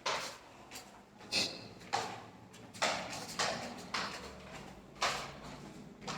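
Footsteps on a hard floor: a series of sharp knocks spaced about half a second to a second apart.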